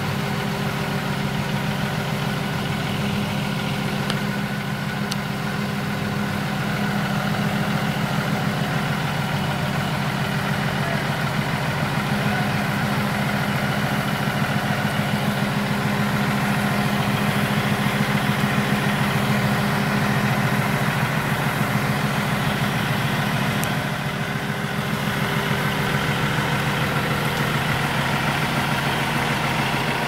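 Diesel engine of a truck-mounted crane running steadily at a constant pitch, a low, even hum.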